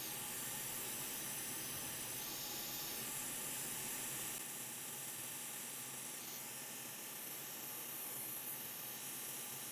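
Steady airy hiss of a hot air rework station blowing onto a circuit board to melt the solder holding a broken USB connector's pins. The hiss drops a little about four seconds in.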